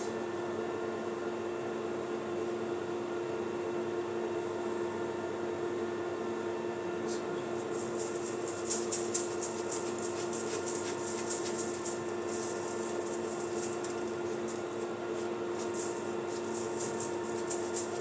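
Maximat lathe running at a steady speed with a constant hum. From about eight seconds in, an irregular scratchy high-pitched rasping comes and goes over it.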